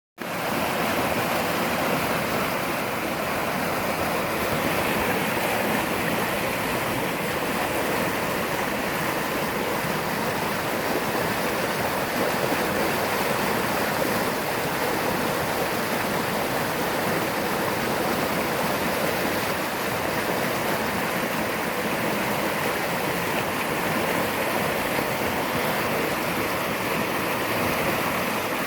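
A creek in flood, high fast water rushing steadily with a constant, even noise.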